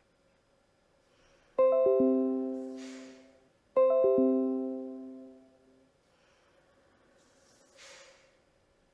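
Dragon NaturallySpeaking's computer chime, played twice about two seconds apart as the program starts up. Each chime is a quick run of notes falling in pitch that rings out and fades.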